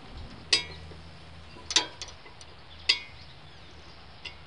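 Three sharp metallic clinks about a second apart, each with a short ring, plus a few lighter ticks, as a circular saw blade is fitted onto a Lucas portable sawmill's saw head.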